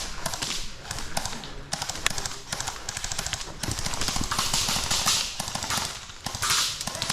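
Quick, irregular footsteps and rustling as a player moves up on foot, with many scattered sharp taps and patches of brushing hiss.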